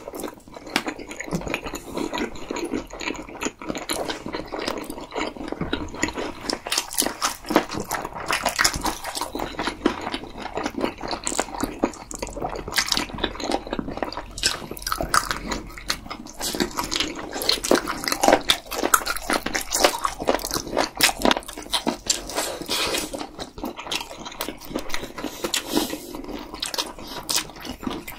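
Close-miked eating sounds of two people chewing fried chicken and saucy food: wet chewing and lip smacking with an occasional crunch, a dense run of irregular clicks.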